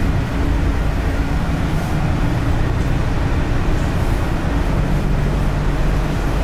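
Inside a moving city bus: steady, loud engine drone with a low hum, and road noise while driving.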